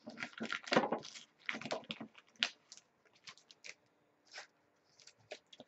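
Trading cards being handled: a run of short rustles and clicks, busiest in the first two and a half seconds, then only a few scattered ticks.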